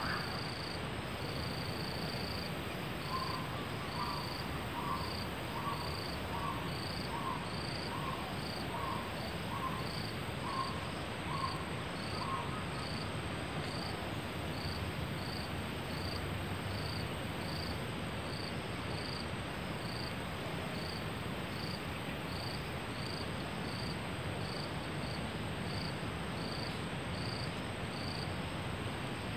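Forest insects: a cricket-like chirp repeating in a steady rhythm, about one and a half chirps a second, over a constant high-pitched insect whine and a hiss. For about ten seconds from around three seconds in, a lower note repeats at about the same pace alongside it, from another calling animal.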